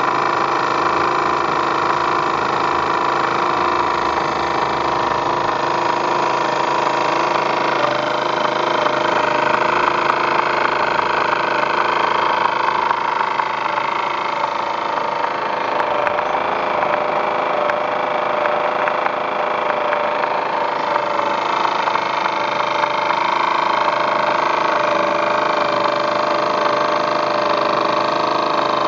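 TVR1A twin-cylinder model steam engine running steadily under steam from its boiler, a continuous mechanical running sound with hiss, its pitch shifting slightly a couple of times.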